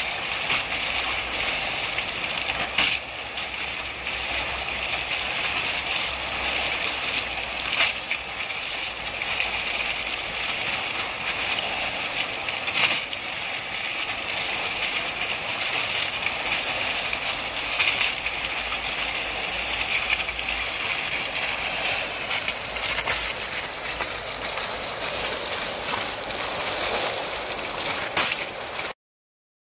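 Foaming garden fountain jets from Oase 35-10E foam nozzles splashing down onto pebbles: a steady rush of falling water, briefly louder about every five seconds. It cuts off suddenly near the end.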